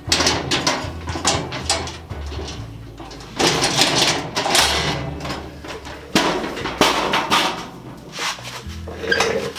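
Metal filing cabinet drawer being worked open and shut several times, with a horrible scraping, grinding metal noise. It comes from a lock latching bar that was bent when the lock was jimmied and now drags inside the cabinet.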